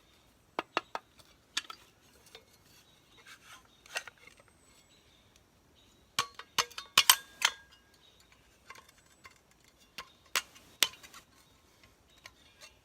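Army surplus folding entrenching tool being handled and unfolded: scattered sharp metal clicks and clinks, with a quick run of them in the middle and two more a few seconds later.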